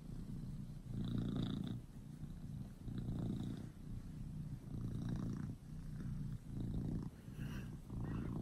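Orange tabby domestic cat purring close up while being petted, the low purr swelling and easing in surges about once a second.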